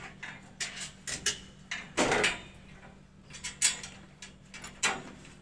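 Hollow steel frame tubes of a swing canopy knocking and scraping against each other as they are fitted together by hand: a string of irregular metallic knocks and short scrapes.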